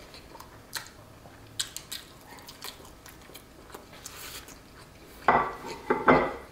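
A fork clicking lightly against a ceramic plate, then two loud knocks near the end as the plate is set down on a wooden table, with a short ring after each.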